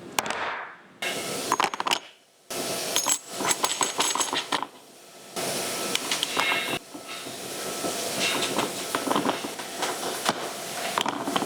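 CNC milling machine cutting metal with a carbide cutter, a hissing spray with clinks of chips, in several short segments that stop and start abruptly.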